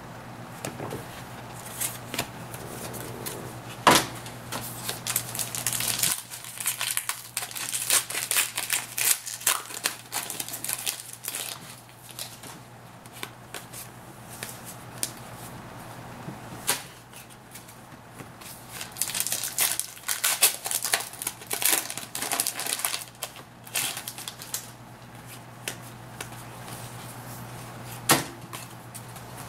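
2011-12 Panini Contenders hockey cards being handled: slid and flicked one by one through a stack, with irregular snaps, clicks and rustles of card stock in spells broken by quieter pauses. A steady low hum runs underneath.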